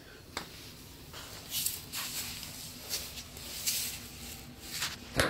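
Husky puppy chewing and mouthing a raw chicken neck: irregular wet smacks and clicks, with a louder one near the end.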